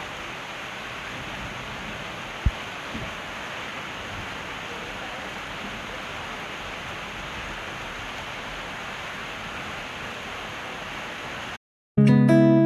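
Steady rain falling, an even hiss with one low thump about two and a half seconds in. The rain cuts off suddenly near the end and strummed acoustic guitar music begins.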